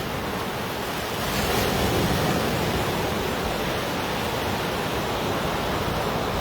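Surf washing onto a sandy beach: a steady rush of breaking waves that swells louder about a second and a half in.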